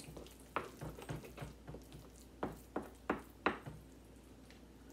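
A wooden spoon mixing mashed sweet potato in a bowl. The spoon knocks sharply against the bowl about seven times, with the loudest knocks in the second half.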